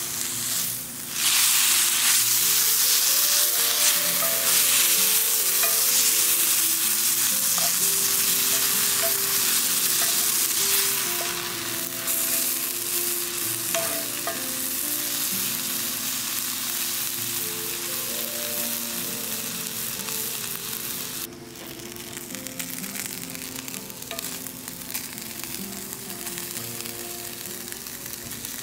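Shredded mushroom, onions and barbecue sauce sizzling in a cast-iron skillet while a wooden spatula stirs them. The sizzle gets louder about a second in, eases after about ten seconds, and drops suddenly past two-thirds of the way through. Soft background music plays underneath.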